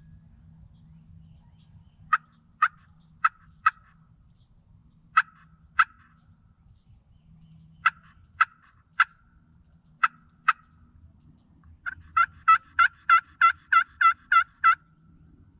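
Turkey friction (pot) call worked with a striker, giving sharp hen yelps in short sets of four, two, three and two, then a fast run of about ten yelps near the end: calling to draw in a gobbler.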